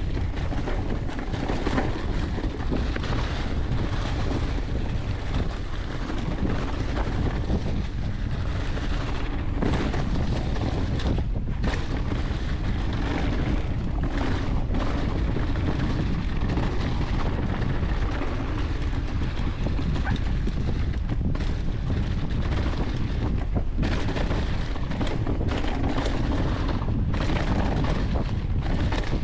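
Mountain bike riding fast down a leaf-covered dirt trail: steady wind rushing over the camera microphone, tyres rolling through fallen leaves, and scattered knocks and rattles from the bike over bumps.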